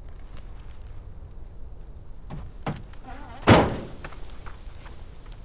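A vehicle door slammed shut once, a loud thunk about three and a half seconds in, after a couple of lighter knocks, over a faint steady low rumble.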